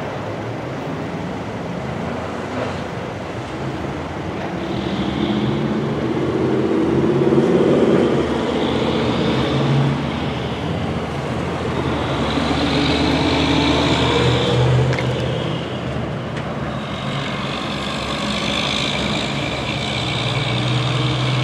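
Road traffic: several cars and a truck driving past one after another, each rising and fading as it goes by.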